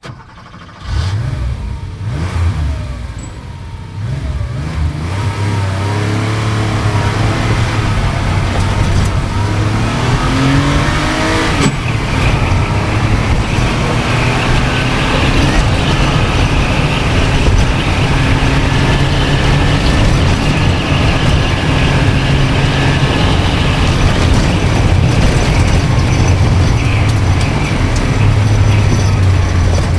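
Sports car engine accelerating hard, its pitch climbing and falling back at each gear change, then holding high revs at speed with a steady engine drone.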